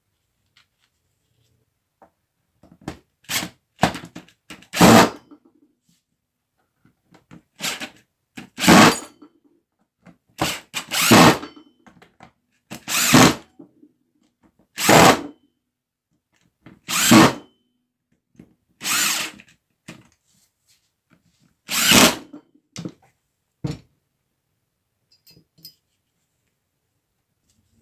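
Bosch PST 50PE jigsaw switched on repeatedly in short bursts of about a second each, with brief pauses between: the freshly cleaned, greased and reassembled saw being test-run.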